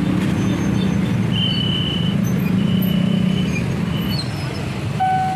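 Motorbike and car engines running and creeping over a busy railway level crossing, a steady traffic din with a few short high tones over it. Near the end a steady electronic alarm tone starts: the crossing's warning signal for an approaching train.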